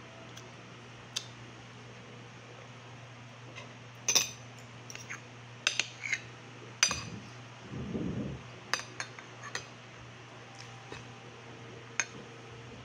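Spoon and fork clinking and scraping against a plate while eating rice, with scattered sharp clinks that come thickest through the middle. A faint steady hum runs underneath, and a brief low muffled sound comes a little past the middle.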